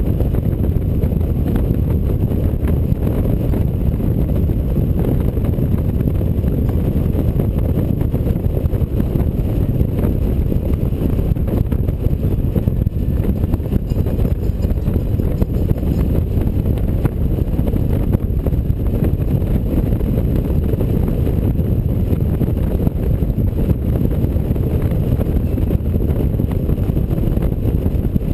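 Steady low rush of wind and engine from a touring motorcycle cruising along the road, picked up by a camera mounted on the bike.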